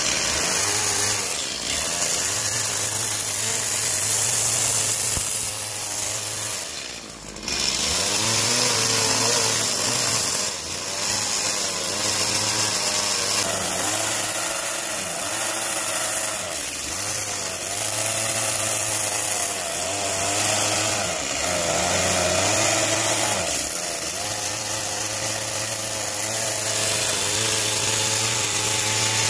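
Stihl chainsaw running under throttle and cutting into wood, its engine pitch wavering as the carving cuts go on. It has short drops in level, the deepest about seven seconds in.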